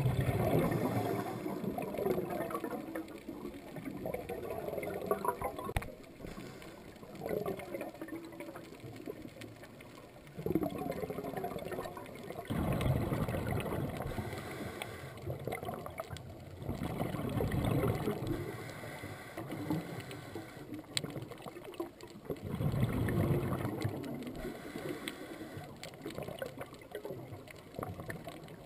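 Scuba regulator exhaust bubbles gurgling, recorded underwater: a burst of bubbling with each exhaled breath, every few seconds, with quieter pauses between breaths.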